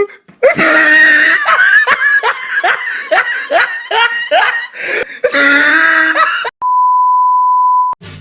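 A person laughing hard in a long run of falling ha-ha syllables, followed near the end by a steady single-tone bleep lasting just over a second.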